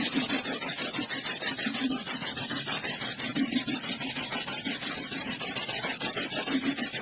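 A steady mechanical running noise with a fast rattly texture, and a low hum that swells now and then.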